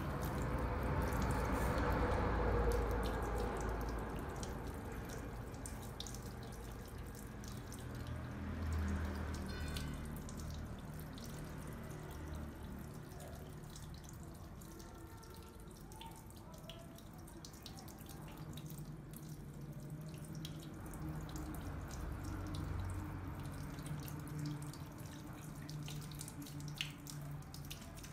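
Water running and trickling into a salon shampoo basin as hair is rinsed, loudest in the first few seconds, then settling to a quieter trickle.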